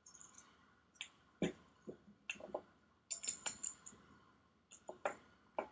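Light metal clicks and clinks of a stainless steel pump body and its fittings being handled and turned over on a wooden tabletop, with a quick run of sharper clicks about three seconds in.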